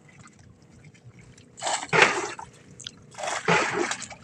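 Seawater splashing and running as collapsible net traps are worked over the side of a small boat: two loud splashes, one about two seconds in and one near the end, with dripping between them.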